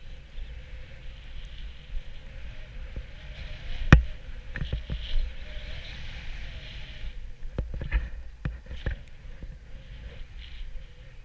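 Snowboard sliding and scraping over packed, rutted snow, with a steady low rumble of wind on the camera microphone. A few sharp knocks cut through, the loudest about four seconds in and a quick cluster around eight to nine seconds.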